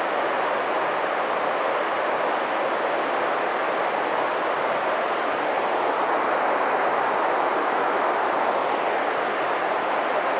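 Mountain stream flowing, a steady, even rush of water with no breaks or changes.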